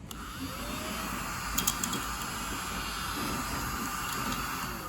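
Deli battery-powered desktop mini vacuum cleaner running with a steady whir as it sucks up eraser crumbs, with a few brief clicks about a second and a half in.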